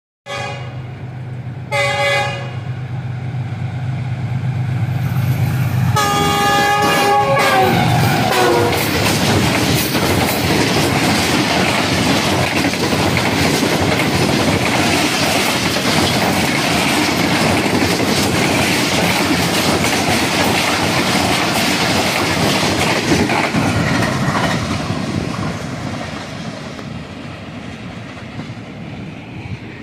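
Passenger train's locomotive horn sounding two short blasts, then a longer blast about six seconds in that drops in pitch as the locomotive goes by. The coaches then rush past close by with a loud clatter of wheels over the rail joints, fading over the last few seconds.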